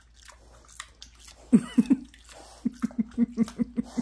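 Potbelly pig chewing a mouthful of sticky peanut butter, with wet mouth smacks. A few loud smacks come about halfway in, then a quick regular run of them at about five a second.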